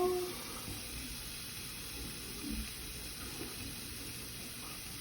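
Steady fizzing hiss of water bubbling as a Smashers Dino Ice Age block dissolves in hot water. A child's sung note trails off at the very start.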